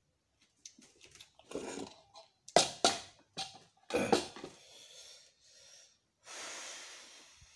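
A few sharp knocks and handling noises as a plastic plate with a spoon and fork is cleared off a wooden table, then a long, breathy exhale near the end.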